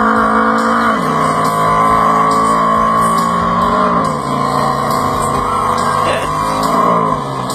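Recorded motorcycle engine sound effect played over loudspeakers: a steady engine note that drops in pitch in steps about every three seconds.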